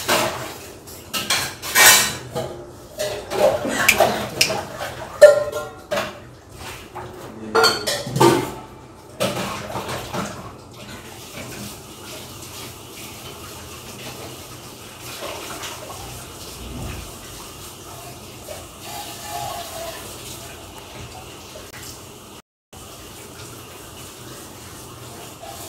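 Clinking and clattering of hard objects, many quick knocks over the first ten seconds or so, then only a faint steady background hiss.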